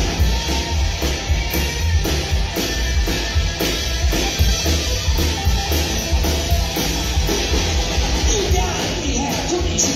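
Live rock and roll band playing with slapped upright bass, drum kit and electric guitar over a steady beat.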